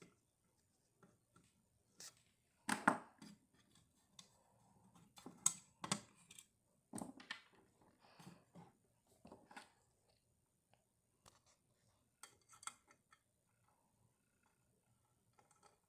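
Screwdriver clicking and scraping on the screws of a fire alarm as they are worked loose, in faint, irregular bursts. Most come in the first two-thirds, with a few more near the end.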